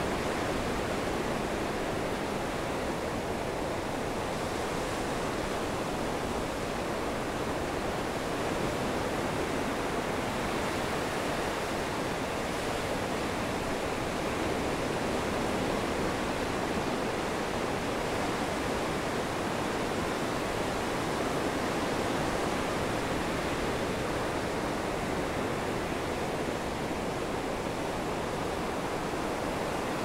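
Rough storm surf breaking on a beach and around the pilings of a pier: a steady, unbroken wash of crashing waves with no separate breaks standing out.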